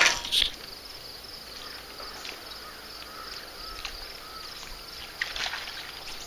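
Insects trilling steadily in a fast pulsing chirp, with a short noisy burst at the very start and another brief one a little past five seconds in.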